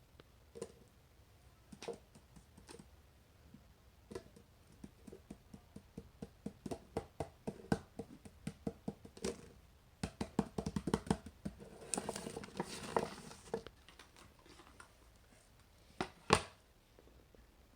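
Small plastic clicks and taps from fidget toys being handled. A few scattered clicks speed up to a quick run of several a second in the middle, then comes a brief rustle and one loud click near the end.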